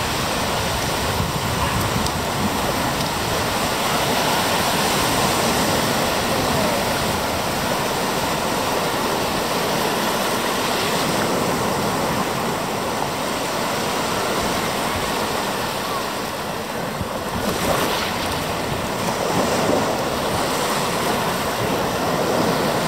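Steady rushing of water, an even noise that swells and eases slightly without a break.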